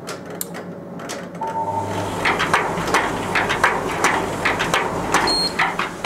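Tumble dryer running with its top off: the drum motor hums from about a second and a half in, and the turning drum scrapes and clicks over and over against a straightened sheet-metal panel that is still touching it. A short beep near the end.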